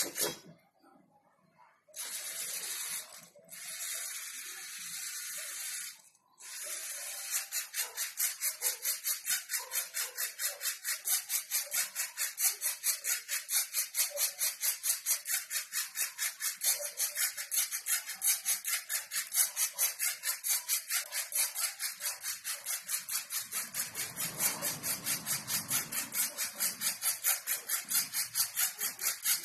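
Small electric motors of a LEGO Mindstorms robot whirring in quick, even pulses, about four or five a second, as it steers along a black line. The sound drops out briefly near the start.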